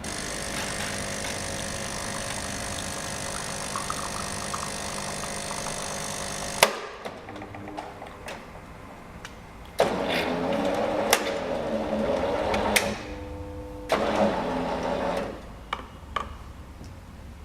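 Automatic bean-to-cup coffee maker running a brew cycle. Its grinder motor runs steadily for about six and a half seconds and stops with a sharp click. After a few seconds the water pump buzzes in two runs, about three seconds and then about one and a half seconds, with a few clicks in between.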